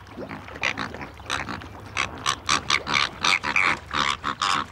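A flock of flamingos calling: a dense run of short, repeated honks, several a second, growing busier about two seconds in.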